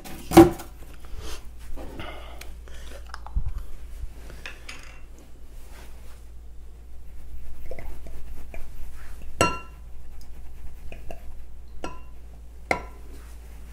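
Kitchen handling sounds: a sauce bottle being shaken and knocked against a glass measuring cup to get the last of the sauce out, with scattered knocks and one sharp ringing glass clink about nine seconds in.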